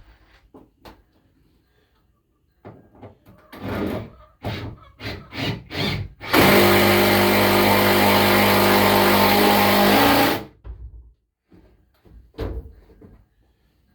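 A series of knocks and taps, then a power drill runs steadily for about four seconds and stops sharply, driving a screw into a wooden board.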